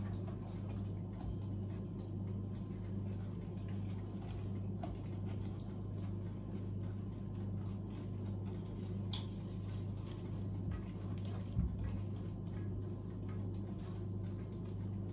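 Wire whisk stirring batter in a stainless steel bowl, its wires clicking and scraping against the metal in a quick, irregular ticking, over a steady low hum.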